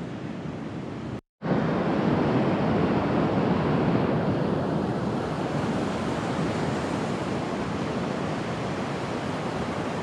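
Caspian Sea surf washing onto a sandy beach, a steady rushing noise mixed with wind on the microphone. It cuts out for a moment about a second in and comes back louder.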